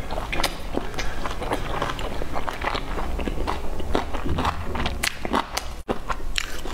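Close-miked chewing of soft dumplings: a steady run of wet smacking and small clicks from the mouth. The sound cuts out for an instant near the end.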